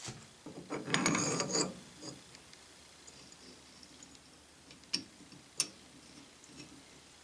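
Metal parts being handled at the rear of a Warner three-speed transmission during reassembly: a short burst of metallic rattling about a second in, then faint fiddling and two sharp clicks around five seconds in.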